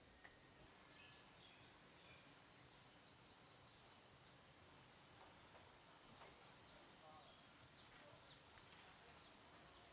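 Faint, steady, high-pitched insect chorus, a continuous trill of crickets. A few faint short chirps are scattered through it.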